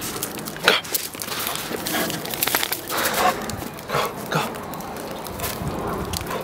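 Black Lab–pit bull mix dog making several short vocal sounds while playing in snow.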